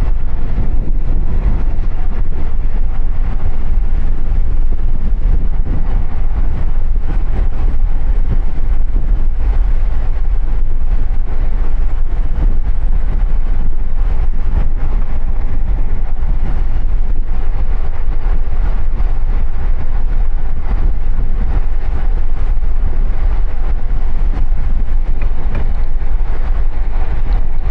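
Steady wind rush over the microphone with tyre rumble from a bicycle rolling on the road, loud and heaviest in the low end.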